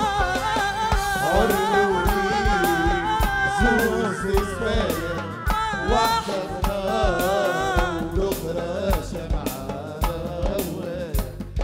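Live Tunisian band music: a woman singing an ornamented, wavering melody over keyboard and a steady drum beat.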